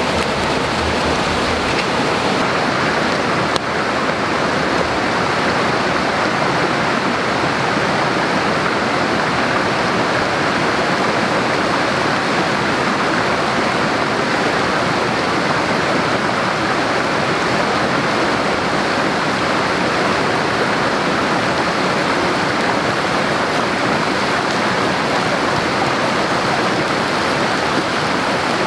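Steady, even rushing noise of water, with no change in level.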